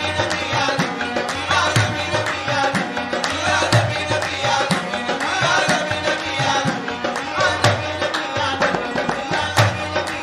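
Qawwali music: tabla drumming a quick steady rhythm with harmonium.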